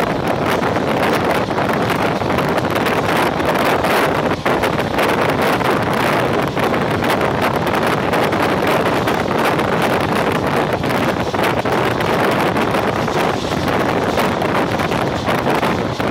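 Steady wind buffeting the microphone at the open window of a moving passenger train, mixed with the even running noise of the coaches on the track.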